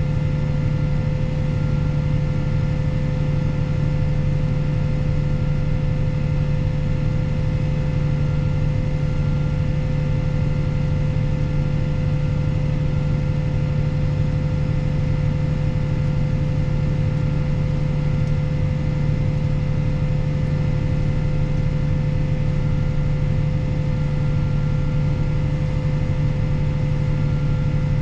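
Fendt 716 Vario tractor's six-cylinder diesel running steadily under load while pulling a slurry tanker, with a constant low drone and a steady whine above it.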